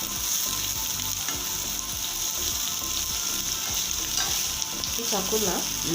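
Carrots, broccoli and onions frying in hot olive oil in a pan, a steady sizzle.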